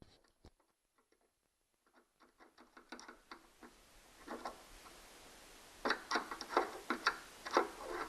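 Irregular metallic clicks and scrapes of a screwdriver working at a very tight screw, sparse at first and coming in a louder cluster near the end.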